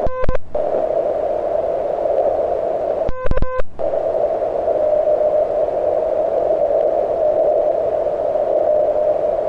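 Morse code sidetone from a QRP CW transceiver: a short run of keyed tones at the start and another about three seconds in. In between, the receiver's band noise hisses steadily through the narrow CW filter, dropping out under each run of tones.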